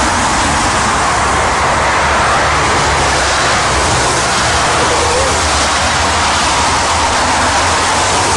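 Jet engine noise of a four-engined airliner coming in to land, played from a video clip over the lecture hall's loudspeakers: a loud, steady roar.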